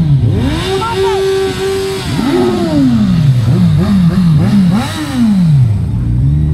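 Motorcycle engines revving as bikes accelerate away: the pitch climbs and holds for about a second, falls, is blipped several times in quick succession, climbs and falls again, then settles to a steady lower engine note near the end.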